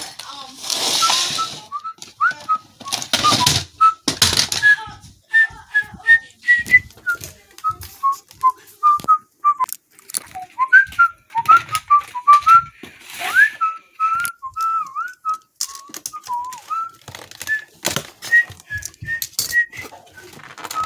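Short, high whistled notes, scattered and sliding up and down in pitch, over clicks and bursts of rustling as the blaster's box and plastic packaging are handled.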